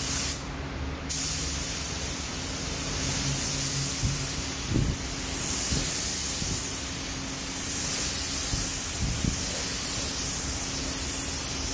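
Gravity-feed paint spray gun hissing steadily as it lays on the blue colour coat. The hiss cuts out briefly about half a second in, then resumes and swells and eases as the gun sweeps. A faint steady hum runs underneath.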